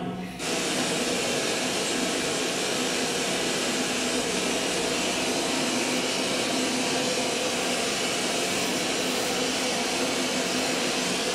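A steady, even rushing noise with a faint low hum, from the soundtrack of a film played over the hall's speakers; it cuts in abruptly just after the start and fades out near the end.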